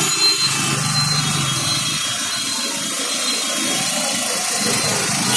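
An engine running steadily under a continuous hiss of street noise.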